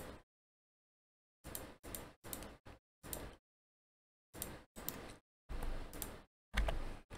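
Computer mouse and keyboard clicking in short separate bursts, about nine over several seconds, with dead silence between them.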